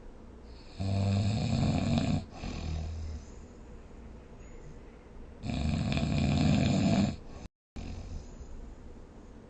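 A person snoring: two loud snores about four and a half seconds apart, each followed by a shorter, quieter breath. The sound cuts out completely for a split second just after the second snore.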